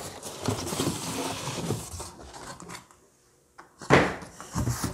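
Cardboard rustling and scraping with small knocks as a hard plastic carrying case is worked out of a cardboard shipping box, then a brief silent gap and a single loud thump a little before the end as the case comes down on the desk.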